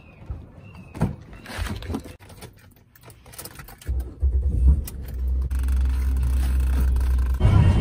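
Clicks and knocks of a car being got into, then from about four seconds in a car running with a steady low rumble. Music comes in near the end.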